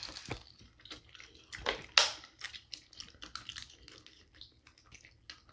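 Wet eating sounds from snow crab legs in sauce: meat being sucked out of the shells and chewed, heard as a run of small wet clicks and smacks, with a louder one about two seconds in.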